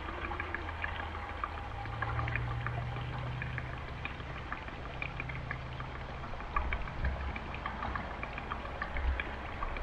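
Gasoline pouring from a spill-proof gas can into a small engine's fuel tank: a steady trickle with scattered small ticks.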